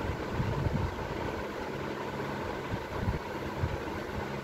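Steady low machine hum with a few soft low thumps, about half a second in and again around three seconds in.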